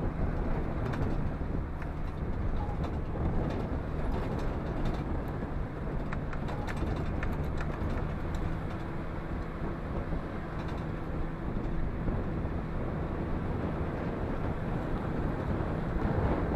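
Bus engine running steadily as the bus drives, heard from a seat at the side window, with light rattling clicks through the first half or so.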